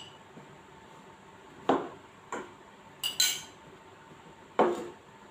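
A spoon and crockery clinking: about five sharp knocks of utensils against plates and bowls, two of them close together a little past the middle.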